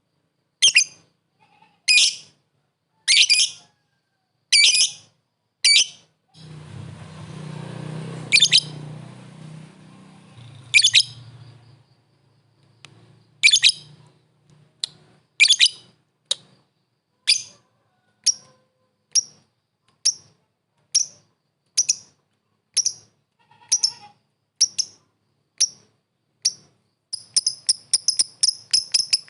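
Lovebird calling a rival with short, sharp, high-pitched chirps, about one a second, quickening near the end into a rapid string of calls. A low rumbling noise sits under the calls for several seconds in the first half.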